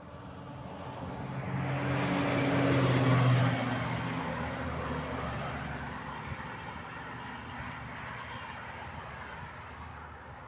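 A motor vehicle passing by: its engine and road noise swell to a peak about three seconds in, the engine tone drops in pitch as it passes, and the sound then fades slowly.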